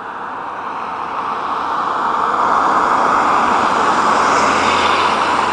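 Airplane passing overhead: a steady engine rush that swells gradually, then levels off about halfway through.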